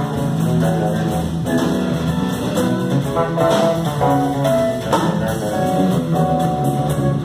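Live band playing instrumental music: an electric bass guitar plucking lines over a drum kit.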